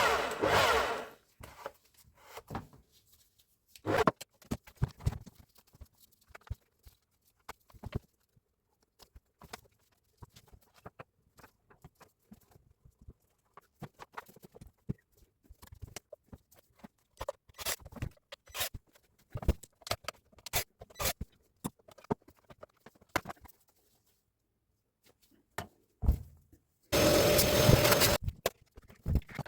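Scattered clicks, knocks and clinks of tools and metal parts being handled while a Hilti TE60 rotary hammer is worked on, with a loud steady noisy burst of just over a second near the end.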